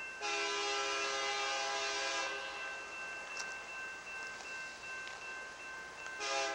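Multi-chime air horn of an approaching BNSF GP60M diesel locomotive, sounding several notes at once. It gives one long blast of about two seconds, then starts another near the end.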